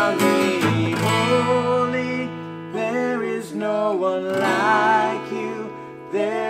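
A woman and a man singing a worship song together to a strummed acoustic guitar, in phrases of a second or two.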